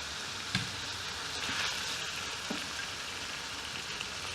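Chicken pieces sizzling in ghee with onion-tomato masala in a hot rice cooker pot: a steady hiss, with a brief knock about half a second in.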